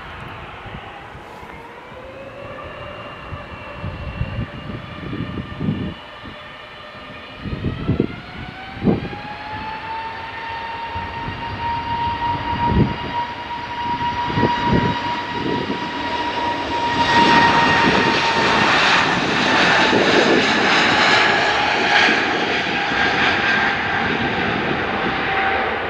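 Jet airliner engines spooling up with a rising whine in two steps, then a louder roar from about two-thirds of the way in. The whine drops slightly in pitch near the end, as when the aircraft moves past.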